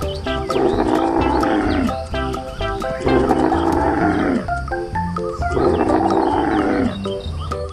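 Three long, hoarse animal calls, each about a second and a half, that rise then fall away and repeat almost identically every two and a half seconds, over background music with short plucked notes between the calls.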